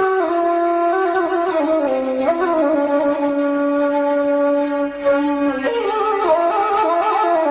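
A reedy wind instrument playing a slow melody of long held notes, stepping and sliding between pitches, with a short break about five seconds in.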